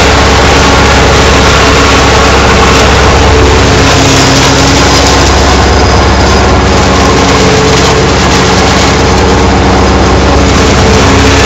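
Tractor engine and a trailed PZ Zweegers PZ 80 S forage harvester running together while chopping maize and blowing the chopped crop into a trailer. The sound is loud and steady, with a constant hum throughout.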